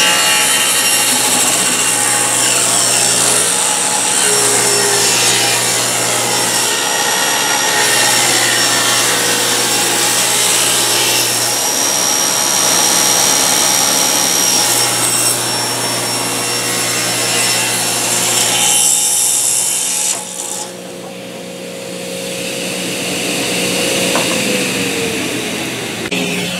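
Table saw ripping a rough-sawn oak board lengthwise along the fence, the blade cutting through the wood under a steady motor hum. About twenty seconds in the cutting noise drops away while the saw keeps running.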